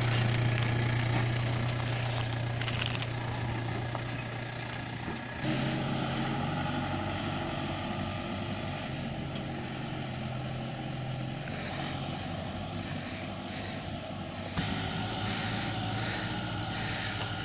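A vehicle engine running steadily off-road, a low even drone that shifts abruptly twice.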